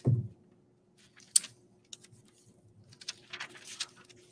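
Dry leaves and a clear sticky craft sheet being handled on a table: a soft thump at the start, a sharp click about a second and a half in, then faint crinkly rustling around three to four seconds in.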